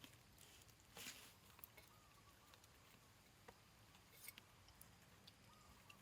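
Near silence with a few faint rustles and light clicks, the clearest about a second in and around four seconds in.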